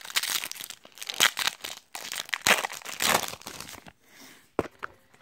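A foil trading-card booster pack being torn open and crinkled: about four seconds of scratchy tearing and rustling, then one sharp tap near the end.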